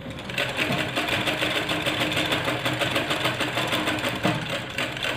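Domestic sewing machine running steadily, stitching a blouse seam: a rapid, even clatter of needle strokes that starts just after the beginning.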